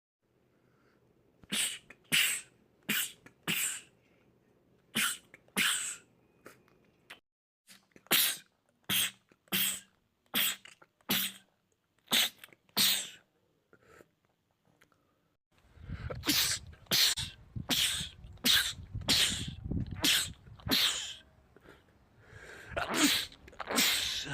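Men sneezing in rapid fits: a long run of short, sharp sneezes, mostly less than a second apart. After a pause of about two seconds they come faster, over a low background rumble.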